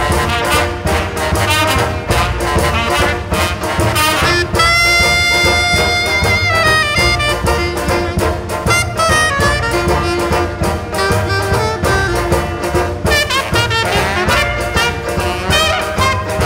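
Background music: brass-led jazz with horns over a steady beat, including one long held horn note about five seconds in.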